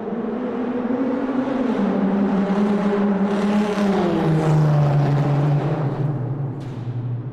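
A car engine in a tunnel grows louder, peaks about halfway through and fades again, its pitch falling in steps as it goes. It sits over a hissing tyre-and-road noise.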